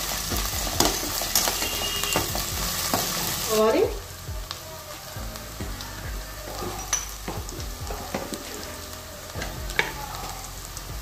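Chopped onions, green chillies and ginger-garlic paste sizzling in hot oil in a kadai, stirred with a metal spatula that scrapes the pan. After about four seconds the stirring stops and a quieter sizzle with occasional small crackles goes on.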